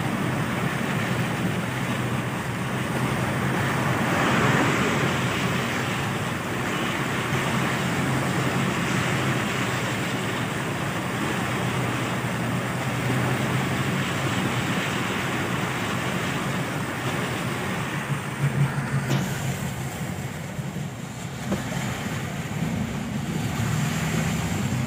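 Steady rushing of floodwater flowing through flooded streets, mixed with rain and wind on the microphone, with a low steady hum underneath. About 19 seconds in the sound changes to heavy rain and traffic heard from inside a car.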